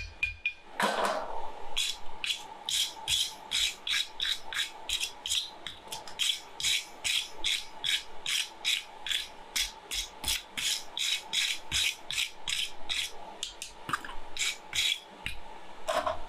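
Rhythmic hand scraping on metal, about three strokes a second, like a wire brush or file worked back and forth, after a single knock about a second in.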